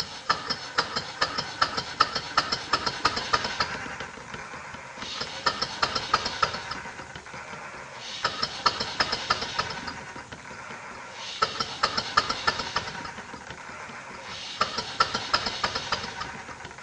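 Chiltern model beam steam engine running with rapid clattering beats that swell and ease in a regular cycle: busy spells of two to three seconds, each broken by a quieter second, about every three seconds. The engine is hunting as its flyball governor opens and shuts the steam valve, speed oscillations caused by lag in the regulation.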